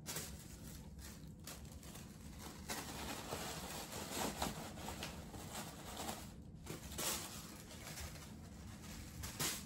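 Faint rustling and crinkling of a gift bag and its contents being handled and arranged, with a few brief louder rustles.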